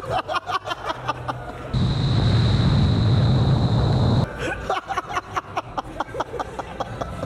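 Electronic background music with a fast, even beat. About two seconds in it gives way for two and a half seconds to the steady rushing roar of an indoor skydiving wind tunnel's airflow, with a thin high whine on top, then the beat returns.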